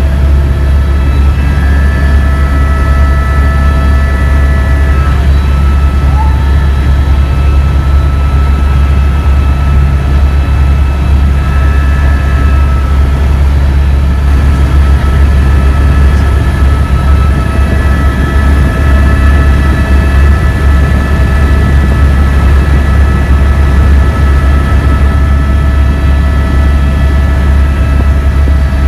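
Steady drone of a small aircraft in flight, heard from inside the cabin. A strong, constant deep hum runs under several steady high whining tones.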